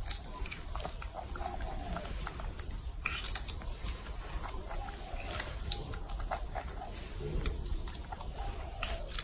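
Baby macaque biting and chewing a peeled orange: irregular short wet clicks and smacks over a low steady rumble.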